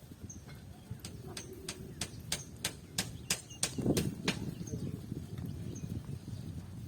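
A run of sharp clicks, getting faster and louder toward the middle, with a dull low burst about four seconds in and faint high chirps over them.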